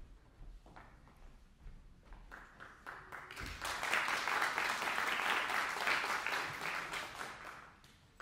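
Audience applauding: a few scattered claps at first, swelling into full applause about three and a half seconds in, then dying away near the end.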